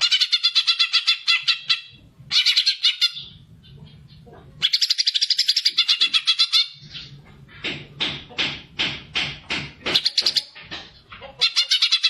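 Green leafbird (cucak ijo) singing in full, lively song. It gives bursts of rapid trilled notes, about ten a second, with short breaks between them. Around the middle and later comes a run of separate loud notes, then another trill near the end.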